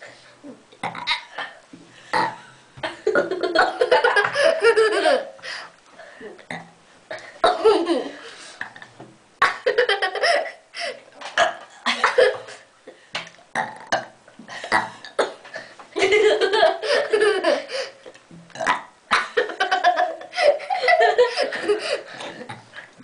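A mother and daughter belching on purpose in a burping contest: several long, loud, drawn-out burps, with laughter between them.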